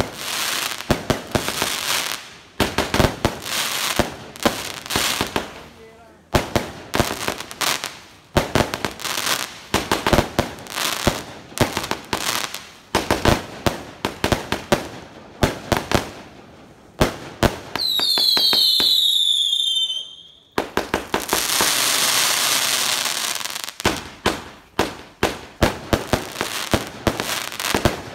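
Aerial fireworks going off in rapid, repeated bangs and cracks. About two-thirds of the way through comes a cluster of falling whistles, followed by a few seconds of continuous crackling hiss before the bangs resume.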